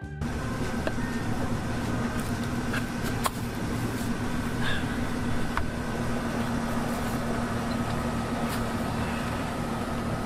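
Steady mechanical hum with a constant low tone, and a few faint clicks.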